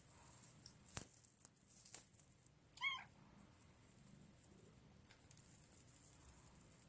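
A British kitten gives one short, high mew about three seconds in, after two light clicks.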